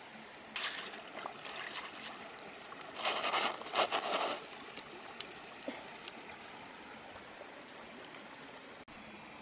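Small shellfish being rinsed in a woven bamboo basket dipped in shallow stream water: water splashing and sloshing, briefly near the start and loudest from about three to four and a half seconds in, over the steady trickle of the stream.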